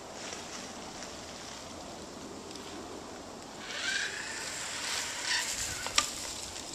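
Backyard zip line trolley rolling down the cable under a rider's weight: a steady rushing whir that grows louder and brighter a little past the halfway point, then one sharp knock about six seconds in.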